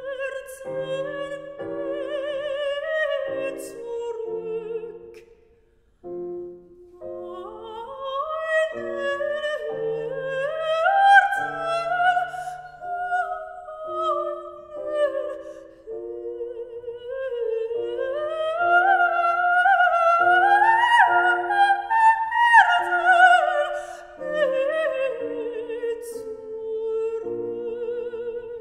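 Operatic soprano singing a slow aria with wide vibrato, accompanied by a Steinway grand piano. After a brief break about five seconds in, her long phrases twice climb to loud high notes.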